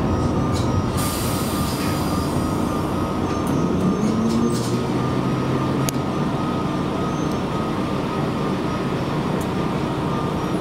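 Diesel railcar of the Aso Boy! tourist train idling while stopped at the platform, a steady engine hum with a brief rise in pitch about four seconds in. A single light click about six seconds in.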